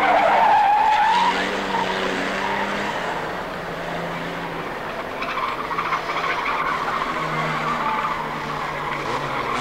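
Several banger-racing saloon cars' engines revving and running together as the pack races round the oval, with a brief high squeal in the first second.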